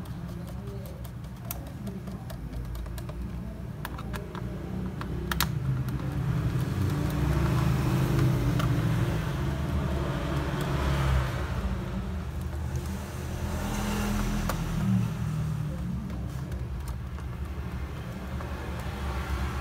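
Light clicks of screws and a screwdriver on a laptop's plastic back cover during the first few seconds, over a steady low rumble that swells in the middle and eases off toward the end.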